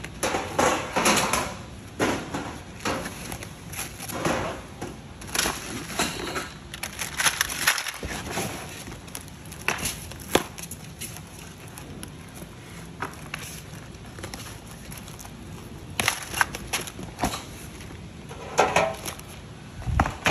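Plastic foam wrapping and film packaging rustling and crinkling in irregular bursts as it is pulled off and handled.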